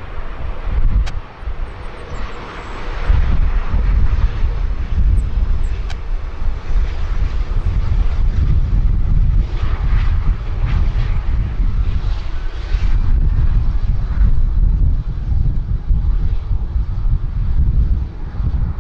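Jet airliner engines on approach to land, a loud rushing drone, under heavy wind buffeting on the microphone.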